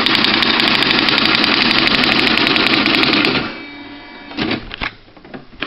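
Quen-Data Executive 80 electronic typewriter running off a rapid, even string of strikes, a steady mechanical rattle that stops suddenly about three and a half seconds in. A few single clicks follow near the end.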